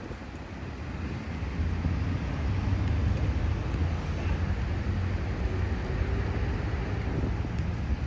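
Low, steady rumble of a motor vehicle's engine in road traffic, building over the first second or two and then holding.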